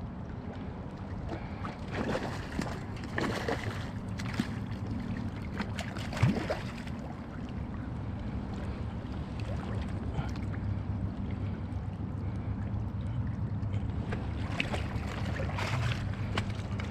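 A hooked trout thrashing and splashing at the surface in shallow water as it is drawn to a landing net, with splashes for a few seconds from about two seconds in, one sharp splash about six seconds in, and more splashing near the end as the fish thrashes in the net. A steady low rumble lies underneath.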